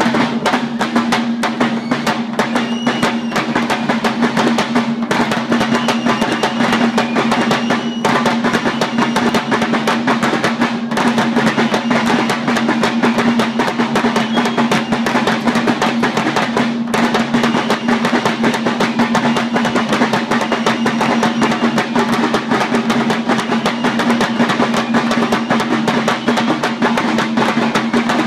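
Lambeg drum beaten with a fast, unbroken rattle of cane strokes, with a few brief breaks, over a steady low ringing hum, and a fife playing along.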